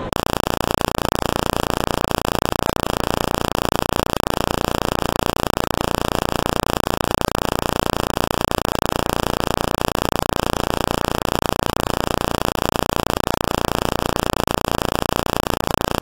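Loud, unchanging harsh static noise that switches on abruptly and holds without any variation: an audio glitch or corrupted stretch of the soundtrack rather than game sound.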